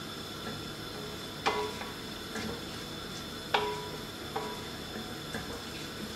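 Risotto rice simmering in white wine with a steady hiss while a wooden spoon stirs it in an enamelled cast-iron casserole; the spoon knocks against the pot twice, about two seconds apart, each knock ringing briefly, with a few lighter taps later.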